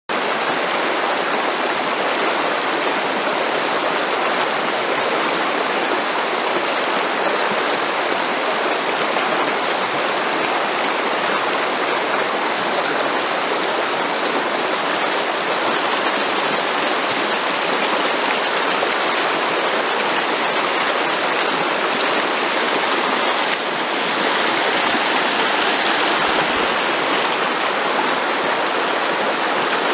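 Shallow, fast-flowing river running over a stony bed: a steady rush of water, a little louder in the last few seconds.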